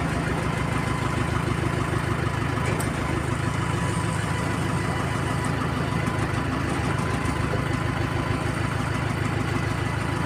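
Combine harvester's diesel engine running at a steady idle.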